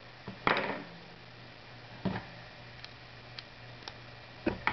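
Small plastic clicks and taps as the electric shaver's plastic and rubber parts are handled and fitted together: a sharper click with a brief rustle about half a second in, a few faint ticks in the middle, and two knocks near the end, over a faint steady hum.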